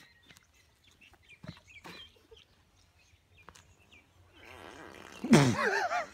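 A loud, wavering, drawn-out vocal sound from a person straining to tow a bicycle-wheeled cart with a passenger on it, lasting about a second near the end. Before it there are only faint scattered clicks and a rising rustle.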